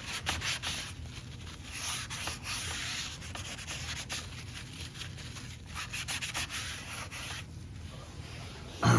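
Repeated rubbing strokes on a hard surface, in uneven spurts of scratchy noise that stop about three-quarters of the way through. A single loud knock follows near the end.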